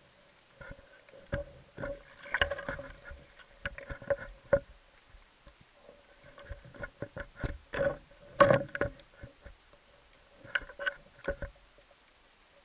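Underwater clicks and knocks from a diver's gear and movements, heard through a camera housing. They come in three irregular bouts, the loudest about two thirds of the way through, with a faint steady hum under them.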